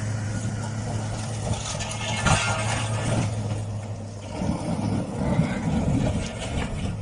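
A vehicle engine running with a steady low hum. There is a sharp knock about two seconds in, and louder, rougher noise from about four and a half seconds.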